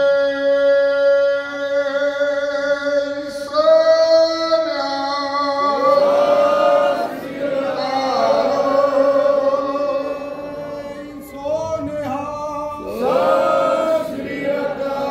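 Gurbani kirtan: a group of voices singing long, drawn-out phrases that slide in pitch over a steady held note.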